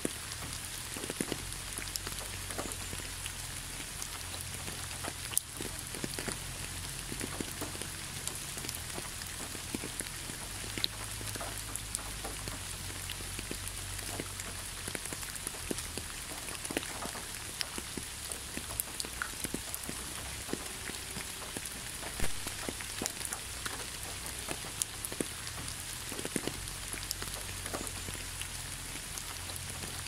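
Steady rain falling on a hard surface: a constant hiss with many separate drops ticking sharply at irregular moments.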